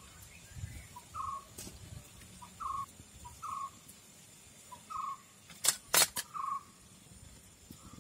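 Stainless steel idli cups clinking sharply three times about six seconds in, as they are lifted out of the steamer, while a bird repeats a short call about once a second.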